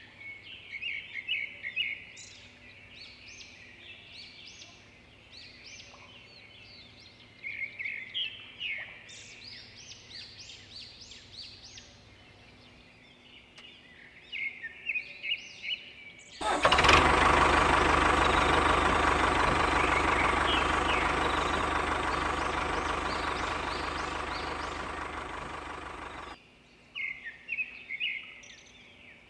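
Small birds chirping in short repeated bursts. A little past halfway a loud, steady mechanical running sound starts suddenly, slowly fades, and cuts off about ten seconds later, then the chirping returns.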